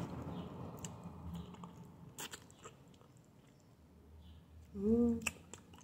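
Close-up eating sounds: scattered soft clicks and crunches of teeth nibbling meat off a small chicken bone, with a short hummed "mm" about five seconds in.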